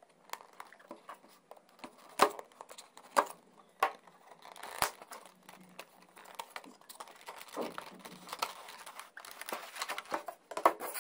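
A cardboard headphone box being handled and opened, with its printed sleeve sliding off: scattered paper rustles and crinkles, with a few sharp taps and clicks of cardboard and plastic packaging.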